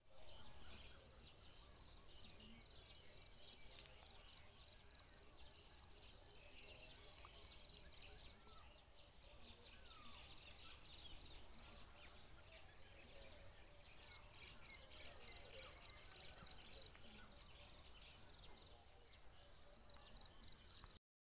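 Faint rural outdoor ambience: a high, rapidly pulsing insect trill that comes and goes, with a few short bird chirps.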